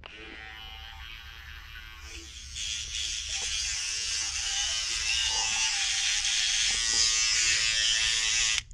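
Electric toothbrush buzzing while teeth are brushed with it. It gets louder about two and a half seconds in and is switched off abruptly near the end.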